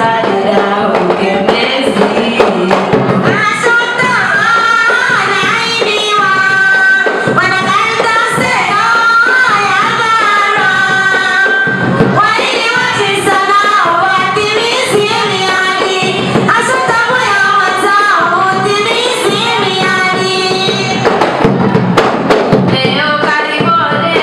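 Women singing into microphones, their voices amplified, with percussion behind them.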